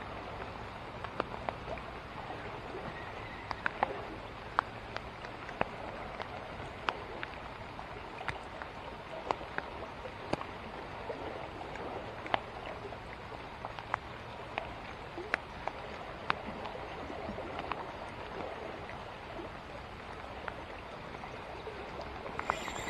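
Steady rain falling on floodwater, with scattered sharp taps of single drops landing close by.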